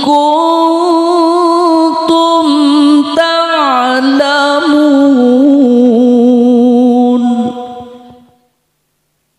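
A male qari's voice reciting the Quran in the melodic tilawah style, drawing out one long ornamented phrase on a single breath. The pitch steps down about three and a half seconds in, and the voice fades out about eight seconds in, leaving silence.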